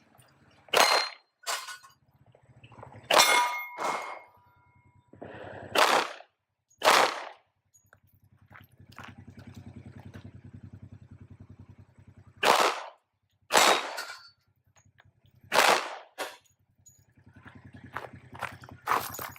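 Glock 40 10mm pistol fired in deliberate single shots, about a dozen sharp reports, often two in quick succession with pauses of a few seconds between. A faint, evenly pulsing hum sounds for a few seconds mid-way between shots.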